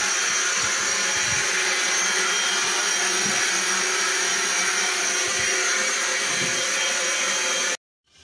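Steady loud hiss of steam in a steam locomotive's cab, with a thin high whistling tone running through it. It cuts off suddenly near the end.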